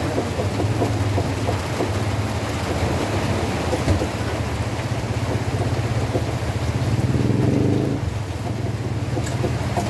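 Rain falling steadily, an even hiss with a constant low rumble underneath.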